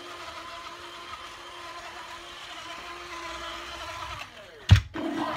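Small electric drive motor of a BB9E toy droid whirring steadily as the droid rolls across a laminate floor. A single sharp knock comes about four and a half seconds in.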